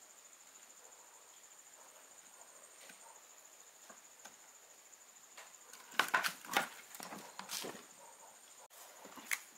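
A circuit board and multimeter test probes being handled on a wooden workbench: a quiet stretch, then about six seconds in a quick cluster of clacks and knocks lasting around two seconds as the board is picked up and turned over, with one more click near the end.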